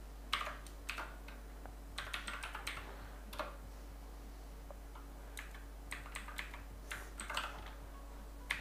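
Typing on a computer keyboard: short runs of keystrokes with pauses between them, over a faint steady low hum.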